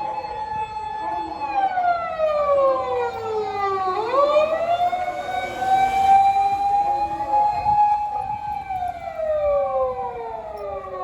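Mini fire engine's siren wailing on an emergency run. Its pitch holds high, slides slowly down, sweeps quickly back up about four seconds in, holds again, and slides down once more near the end.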